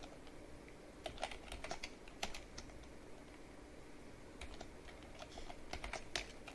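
Typing on a computer keyboard: two bursts of keystrokes about a second and a half each, with a pause between them.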